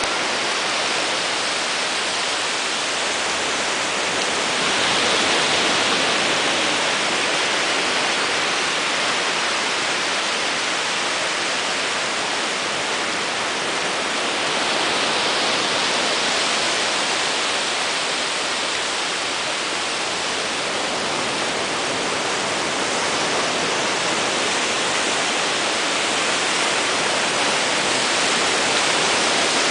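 Small ocean waves breaking and washing up the sand at the water's edge: a steady rush of surf that swells about five seconds in and again around fifteen seconds.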